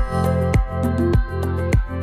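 Background music: an electronic track with held chords over a steady beat, a little under two beats a second.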